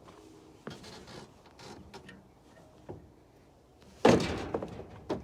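Scattered knocks and clatter, then one loud bang about four seconds in that rings out briefly, with another knock at the end.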